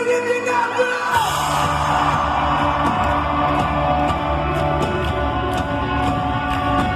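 Live rock band performing with a sung voice holding and bending a note. About a second in, the full band crashes in with drums, bass and a cymbal hit, and the drums then keep a steady beat.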